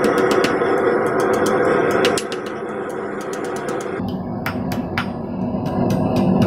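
Hand hammer striking hot thin sheet steel held in tongs on an anvil, a quick run of ringing blows about four or five a second.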